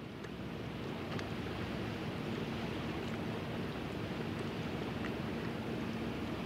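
Steady outdoor seaside rumble of wind and water, with a faint steady hum that grows a little stronger about two and a half seconds in.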